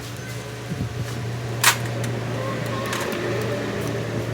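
A steady low machine hum, with one sharp click or knock about a second and a half in and a fainter one near the end.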